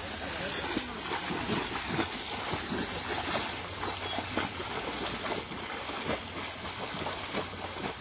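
Shallow water splashing and sloshing as several people wade through a flooded rice paddy dragging a net, with irregular splashes from their steps.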